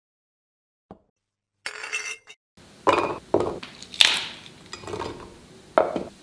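Garlic cloves, ginger and green chillies dropped and placed into a stainless-steel mixer grinder jar, making a series of clinks and knocks against the metal. The sharpest comes about four seconds in, and a last knock near the end as the plastic lid is pressed on. Before that there are about two and a half seconds of near silence with one short noisy sound.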